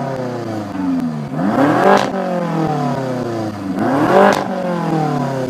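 BMW F10 M5's twin-turbo V8 blipped twice through an aftermarket exhaust, the pitch rising quickly to a peak then falling slowly back each time.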